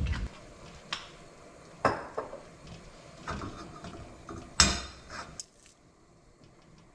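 Cookware being handled at the stove: a few light knocks and clinks, the sharpest a bit over four and a half seconds in.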